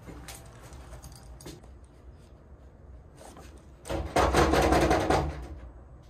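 A quick run of knocks on an apartment door, about a second long, starting about four seconds in.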